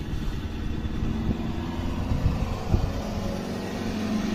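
A car driving past through floodwater, its engine tone rising towards the end, with wind rumbling on the microphone.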